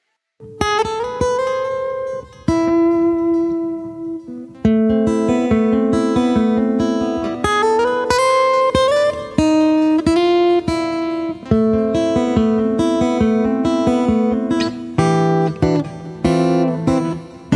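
Background music on plucked acoustic guitar, starting about half a second in, picking a melody of clear, separate notes.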